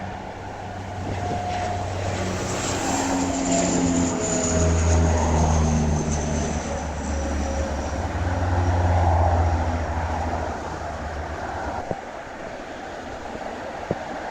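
An airliner passing close by, its engines a steady low drone with tones that slide down in pitch as it goes past. The sound drops away about two seconds before the end.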